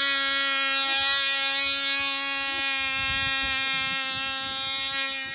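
Small two-stroke engine of a control-line model airplane running flat out at a steady high-pitched buzz while the plane is held for launch, easing slightly in loudness near the end.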